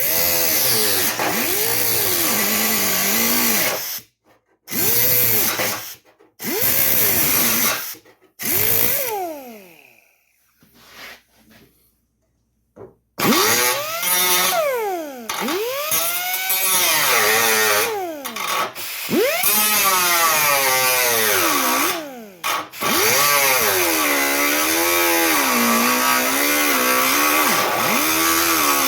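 A handheld grinder with a cut-off wheel cutting out rusted sheet steel. Its whine dips and rises in pitch as the wheel bites and frees, and it stops and restarts several times, with a longer pause about ten seconds in.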